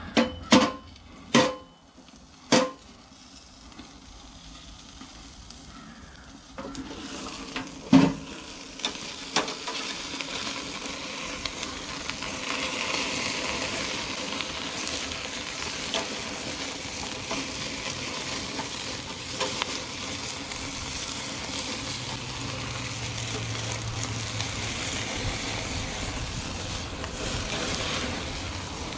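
A few sharp metal knocks as the small charcoal grill's lid and spatula are handled, then hamburger patties sizzling on the grate over flaming charcoal, a steady hiss with another loud knock about eight seconds in.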